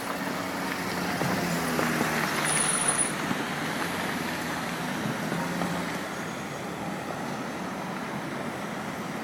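Street traffic noise: motor vehicles running past, swelling louder about two to three seconds in, with a brief high squeak near the loudest point.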